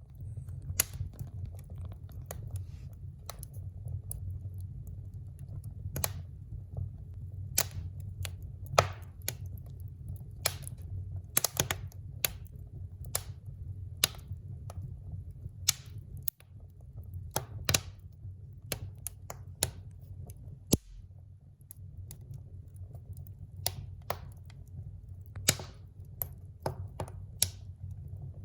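Irregular sharp clicks and ticks, a few a second at times, over a steady low hum.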